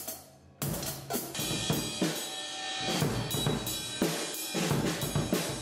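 Acoustic drum kit being played: bass drum, snare and cymbals in a busy beat, starting after a short gap about half a second in.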